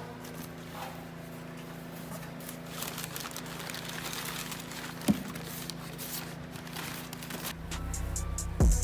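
Light rustling and crinkling with scattered clicks as cold air intake parts are handled over a low steady hum, with one sharp knock about five seconds in. Near the end, music with a heavy bass-drum beat comes in.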